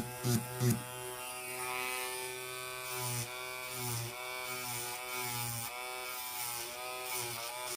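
Electric nail drill (e-file) running with a steady whine while filing a gel-coated fingernail, its pitch dipping slightly and its loudness swelling and easing about once a second as the bit is pressed against the nail and lifted.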